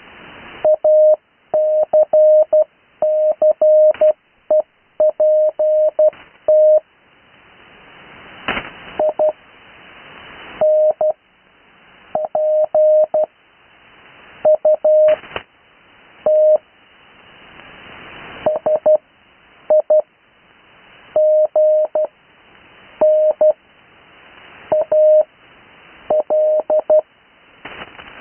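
Morse code (CW) plain text sent at about 12 words a minute, a single keyed tone near 600 Hz heard through a shortwave receiver on the 80 m band. Band hiss swells in the gaps between characters, with a couple of sharp static crackles.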